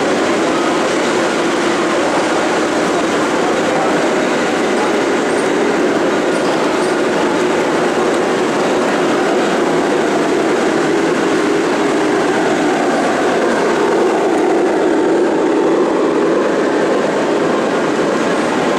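Several G-scale model trains running at once on floor-level track: a steady rumble and clatter of wheels on the rails and their motors, with a streamlined passenger train coming close and passing near the end.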